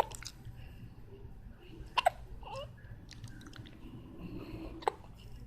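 A person hiccuping: short, sharp hiccups recurring every two to three seconds, one at the start, one about two seconds in and one near the end.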